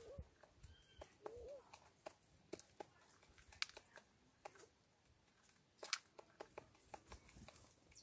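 Small birds pecking and cracking seed in a hanging feeder tray: scattered light clicks and taps, two of them sharper. Near the start there is a short low bird call, and another comes about a second and a half in.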